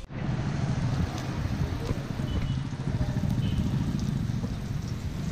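Chopped onions sizzling and frying in hot oil in a large iron wok, a steady hiss over a strong low rumble.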